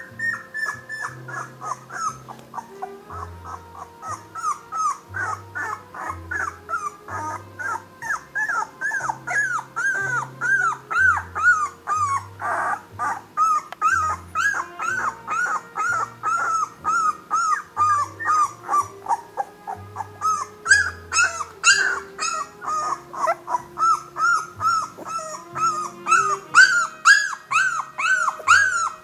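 Young Nova Scotia duck tolling retriever puppies whimpering and squealing over and over, short rising-and-falling cries two or three a second, over background music.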